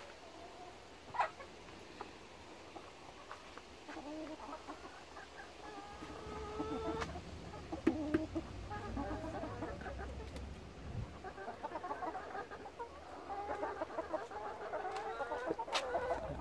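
A flock of domestic hens clucking. The calls grow busier from about four seconds in, and a few sharp clicks stand out, the loudest just over a second in and near eight seconds.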